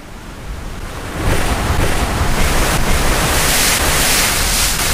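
Ocean surf: a softer wash of waves that swells into a loud, steady rush about a second in.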